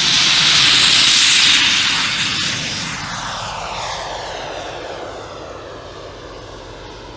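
Turbine of a Sebart Avanti S RC model jet flying past: a loud rushing whoosh that peaks about a second in, then fades away with a falling, sweeping pitch as the jet flies off.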